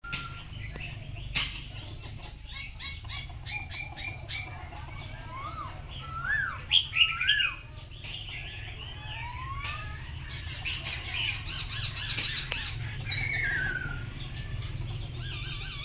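Caged songbirds singing and calling: a varied string of whistled, rising and falling notes and chirps. The loudest part is a run of rising whistles about six seconds in, followed by a busier stretch of song around eleven to thirteen seconds, with a few sharp clicks between the notes.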